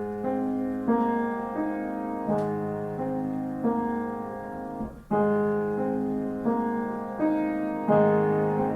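Piano playing slow, sustained chords that change about once a second: the introduction to a hymn, with the choir coming in right after.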